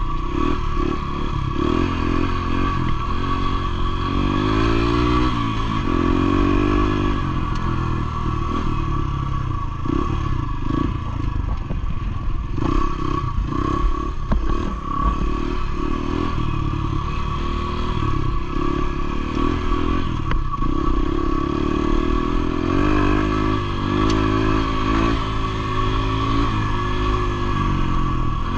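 Motorcycle engine running while riding over a rough, stony dirt track, its pitch rising and falling with the throttle, most clearly a few seconds in and again near the end. Scattered clatter from the bike jolting over stones.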